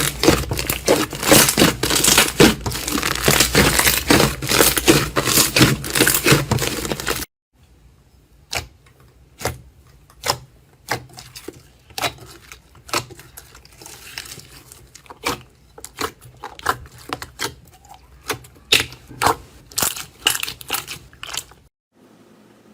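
Close-up crackling and crunching of a crunchy material being pressed and squeezed: dense and loud at first, then after an abrupt cut about seven seconds in, separate quieter crackles roughly once a second.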